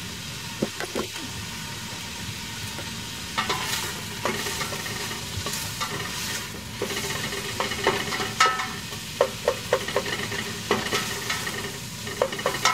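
Chopped onions and red bell peppers sizzling in olive oil in a stock pot on high heat. From about three seconds in, a spoon stirs them, with frequent short clicks and scrapes against the pot over the steady sizzle.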